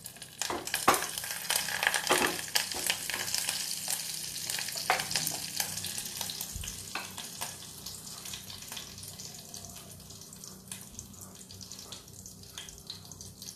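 Curry leaves, bay leaf and whole spices sizzling and crackling in hot ghee in a small pan: the tempering for a dal. The popping is loudest in the first few seconds and gradually dies down.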